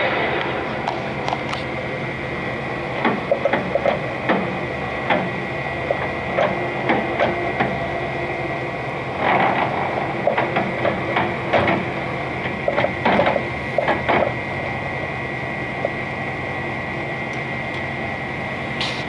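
Clausing Colchester 8031 engine lathe running, its spindle and chuck turning with a steady hum and a high, even whine. Irregular clicks and knocks sound over it between about three and fourteen seconds in.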